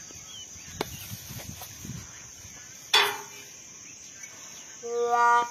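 Steady high-pitched insect drone in the open air, with a sharp click and a short loud burst about three seconds in. Near the end, a held musical note begins.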